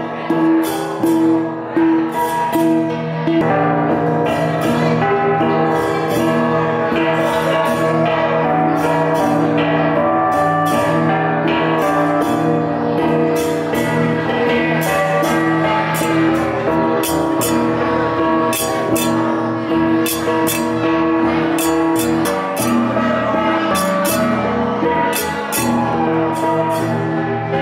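Cồng chiêng gong ensemble playing: gongs ring on held, overlapping tones under a steady run of rhythmic strikes.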